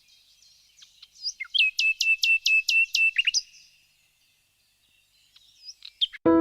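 Small birds calling and chirping, including a quick run of about eight repeated whistled notes, each sliding down then holding, between about one and a half and three seconds in. A pause follows, then a few more calls, and a piano chord starts right at the end.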